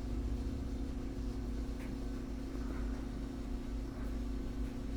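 A steady low hum made of several level tones, with a couple of faint small ticks.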